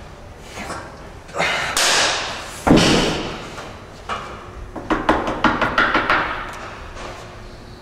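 Fist pounding on a wooden door: two heavy thumps, then a quick run of about nine knocks.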